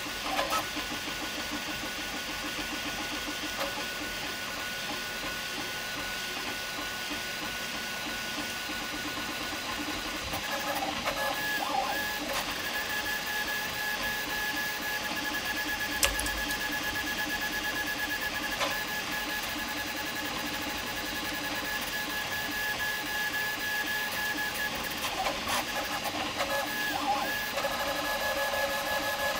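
Prusa MK4 3D printer printing fast on input-shaping firmware: its stepper motors whine in steady tones that shift pitch about ten seconds in as the head changes moves. One sharp click comes a little past halfway.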